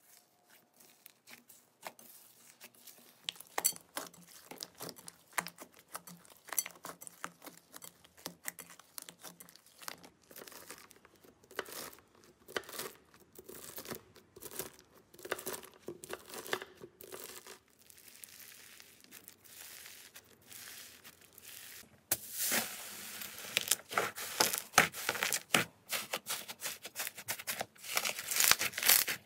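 Slime being worked: foam-bead slime squeezed by hand, a knife slicing through bead-covered slime, and fluffy slime kneaded and pulled apart. It makes a run of small crackling, popping and tearing sounds that grows much louder and denser near the end.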